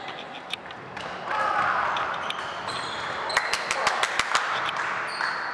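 Game sounds of a tchoukball match: voices calling, short high squeaks like court shoes on the floor, and a quick run of about ten sharp clicks about three and a half seconds in.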